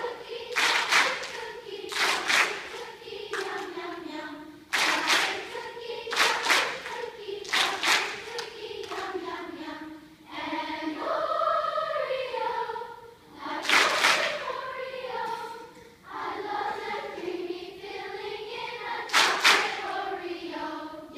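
A large children's choir singing vocal warm-up exercises: phrases of a few seconds on held notes that glide up and down in pitch. Several phrases start with a sharp attack.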